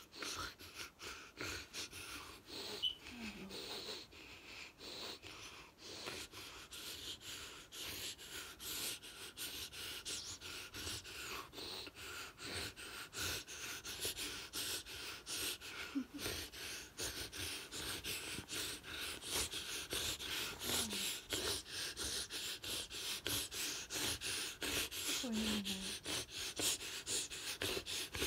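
A woman's rapid, heavy breathing during a seizure, in quick repeated gasps that grow louder and faster toward the end, with a few short low vocal sounds between them.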